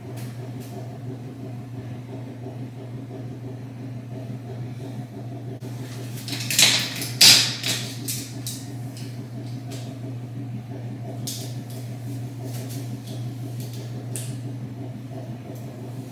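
Steady low machine hum, with soft rustles and clicks of hands gathering curly hair into a bun. A brief loud hissing rustle comes about six and a half seconds in.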